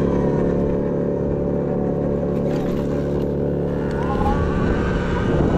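Sur-Ron Light Bee X electric dirt bike's motor and drive running at a steady speed, a steady hum of several tones.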